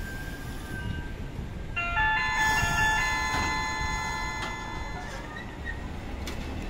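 Low rumble of street and tram noise. About two seconds in comes a short bell-like chime of a few quickly stepped notes that rings on and fades out over about three seconds.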